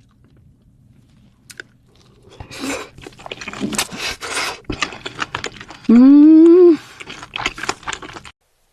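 Close-up crunching and chewing of seafood, wet mouth sounds with sharp crunches, starting a couple of seconds in. About six seconds in the eater gives a loud, rising "mmm" hum lasting under a second; the sound then cuts off suddenly.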